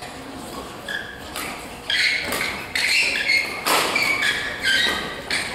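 Badminton rally sounds on a gym court: rackets tapping the shuttlecock, with several sharp knocks and short squeaks of shoes on the court floor.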